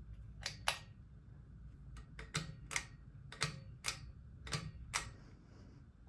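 Pull-chain switches on a Harbor Breeze Springfield ceiling fan clicking as the chains are pulled, switching the light kit off and the fan motor on: about ten sharp clicks, several in quick pairs.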